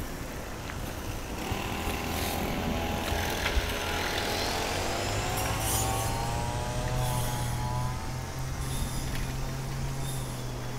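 A road vehicle drives past, its engine tone sliding down in pitch as it goes by, with road noise loudest in the middle. A steady low hum sets in about halfway through.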